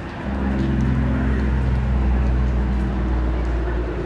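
A motor vehicle's engine running close by: a low rumble with a pitched hum that comes up about a quarter second in and holds, its pitch sinking slightly, over a steady hiss.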